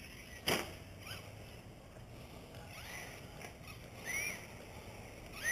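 Electric motor of a Traxxas Slash 2WD RC truck whining in short throttle bursts, each rising then falling in pitch, clearest about four seconds in and again at the end, with one sharp knock about half a second in.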